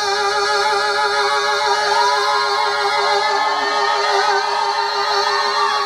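A rock singer holding one long, high sung note with vibrato through a live microphone, with other voices and sounds wavering above it.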